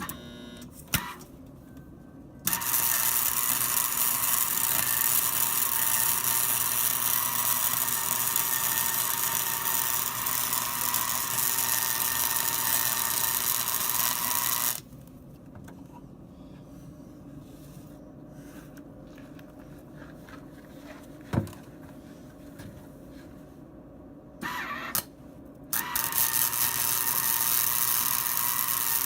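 Hobart welder arc welding steel chain hooks onto a skid steer bucket: a steady hiss of the arc for about twelve seconds, then a pause with a single sharp click, a couple of short strikes, and a second steady weld starting near the end.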